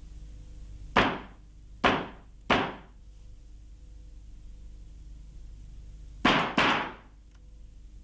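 Knocking on a door: three knocks about a second in, then after a pause of a few seconds two more in quick succession, each ringing out briefly, over a faint steady hum.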